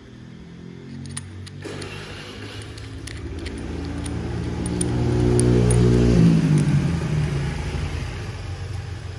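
A motor vehicle passing by: its engine grows steadily louder, peaks about two-thirds of the way through, then drops in pitch and fades. A few light clicks come in the first few seconds.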